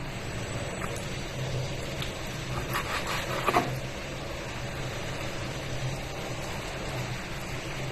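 A steady low mechanical hum, with a few light knocks about three seconds in.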